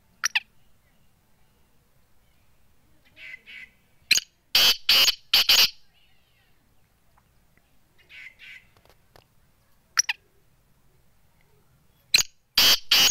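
Black francolin calling twice, about eight seconds apart: each call is a few soft notes, a sharp click, then three loud, harsh, rasping notes.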